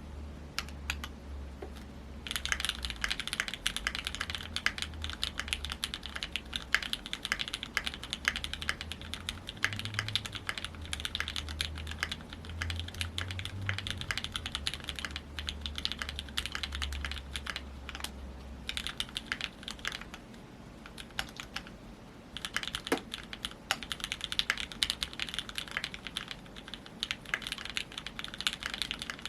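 Keychron Q2 mechanical keyboard with lubed 50g Gateron Milky Yellow Pro linear switches in a steel plate, typed on fast and continuously. Only a few keystrokes in the first two seconds, then steady typing with two short pauses about two-thirds of the way through.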